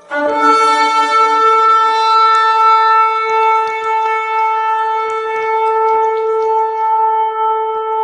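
One long shofar blast. It opens with a short lower note, then holds a single steady pitch.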